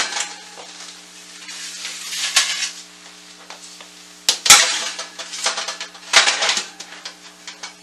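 Metal cookie sheets and the racks of a Samsung electric range's oven clanking and scraping as trays of bread cubes are slid in. There are several sharp clanks, the loudest about four and a half seconds in and another about six seconds in, over a steady low hum.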